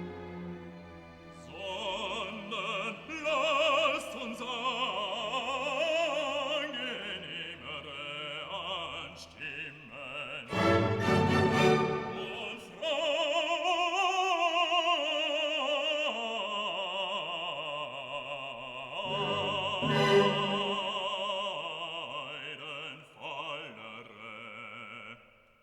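Background music: a classical piece with an operatic singing voice and orchestral accompaniment.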